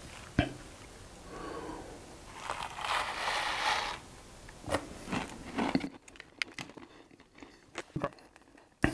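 Small plastic snack sachet crinkling and tearing open, followed by a few sharp crunches as seasoned sunflower seeds are bitten into.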